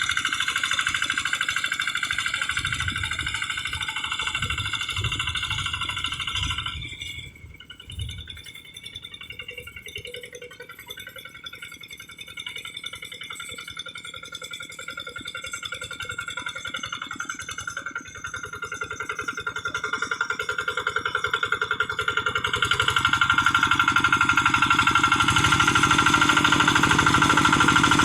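Single-cylinder Kubota RD85DI diesel engine of a hand tractor running, dropping suddenly to a much quieter level about seven seconds in and building back up to full loudness over the last several seconds.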